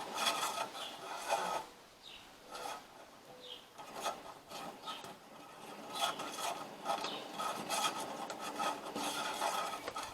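Metal parts of a truck bed crane rubbing and scraping in repeated strokes as the freshly greased swivel piece is worked into its metal-to-metal socket. There is a quieter pause between the first strokes and the rest.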